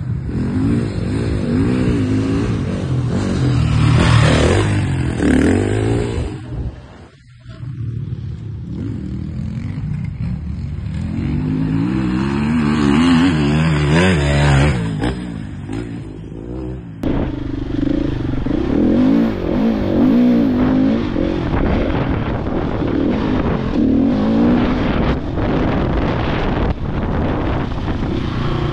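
Husqvarna 701's single-cylinder engine revving up and down as the bike is ridden around a dirt motocross track. In the first part it is heard passing from trackside, briefly fading about 7 s in. After a cut about 17 s in, it is heard from on board, with the pitch rising and falling through the throttle changes.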